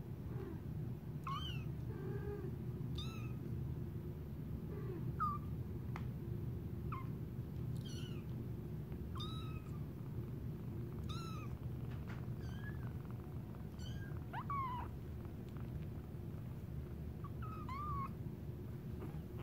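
Three-week-old kitten mewing repeatedly: a dozen or so short, high-pitched mews at irregular intervals, over a steady low rumble.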